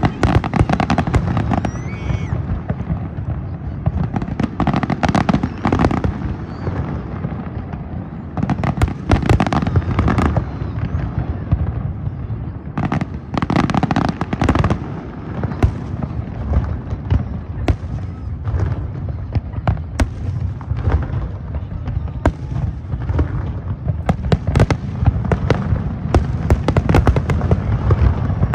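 Fireworks display: a continuous barrage of sharp bangs and crackles, with louder clusters of bursts every few seconds.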